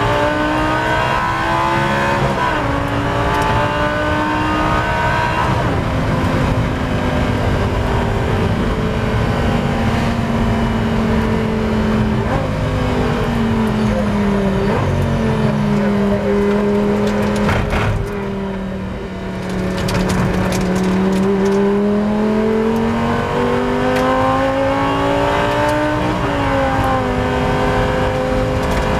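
Onboard sound of a Lamborghini Gallardo Super Trofeo race car's V10 engine at racing speed. Its pitch climbs under acceleration and steps down sharply at gear changes. About two-thirds of the way through it drops quieter for a moment on lift-off, then builds again.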